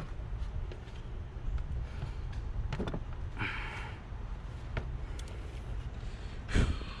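Hand work on engine-bay intake parts: scattered clicks and a brief scrape or squeak of parts being worked loose, then a single knock about six and a half seconds in, over a steady low rumble.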